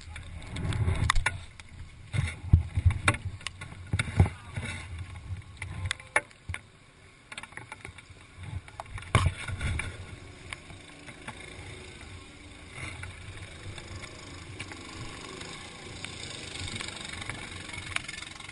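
Handling noise from a GoPro action camera being carried and turned in the hand: irregular knocks, clicks and rubbing against its housing over the first half, then a steadier hiss.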